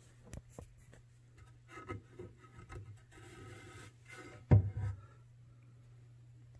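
Handling noise of a wooden box on a workbench: scattered rubbing and scraping of wood, then one sharp wooden knock about four and a half seconds in.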